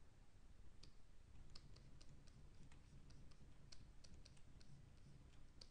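Faint, irregular clicking of computer keys, about a dozen light clicks over a low steady hum.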